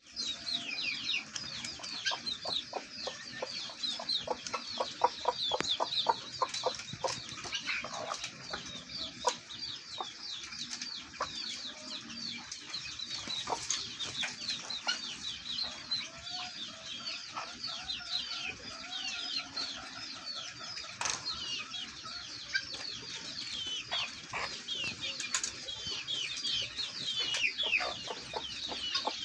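Poultry-yard birds calling: a continuous stream of high, quick downward chirps, with a run of fast low clicking about a quarter of the way in.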